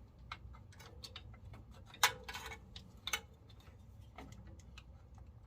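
Scattered light clicks and taps of hand tools and small parts being handled during rewiring, with two sharper knocks about two and three seconds in, over a low steady hum.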